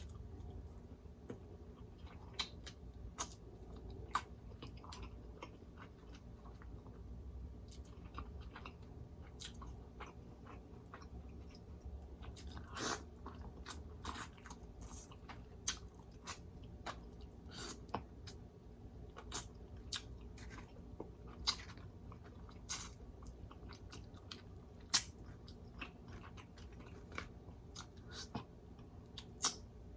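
A person chewing crispy whole fried red snapper close to the microphone, with scattered sharp mouth clicks and smacks at irregular intervals, a few louder than the rest.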